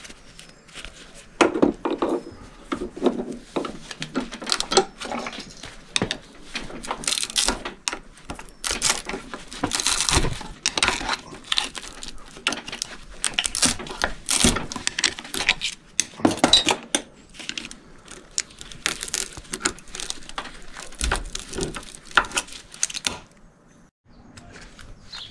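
Irregular metal clinks, scrapes and rattles as copper windings are pried and pulled out of electric motor stators held in a vise.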